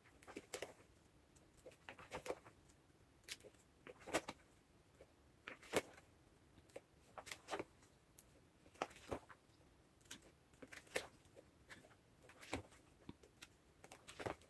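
Plastic photocard sleeve pages in a ring binder being turned one after another, giving faint crinkles and soft clicks at irregular intervals.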